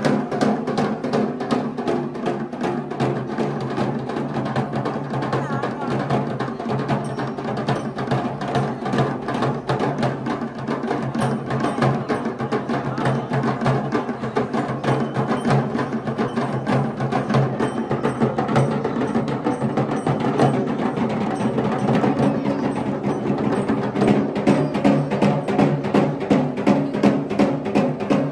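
Festival drums playing a fast, dense rhythm, with steady held tones from a pitched instrument underneath. The drum strokes stand out more sharply near the end.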